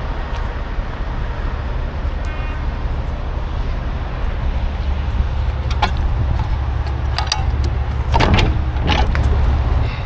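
Metal clicks, clanks and rattles of a refrigerated trailer's rear door latch bar being worked and the door swung open. The loudest clatter comes in the last two seconds, over a steady low rumble.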